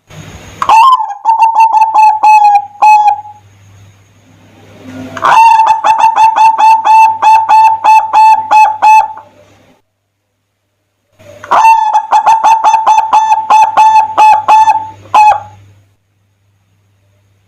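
Zebra dove (perkutut) cooing in three runs of quick, evenly repeated staccato notes, each run lasting three to four seconds.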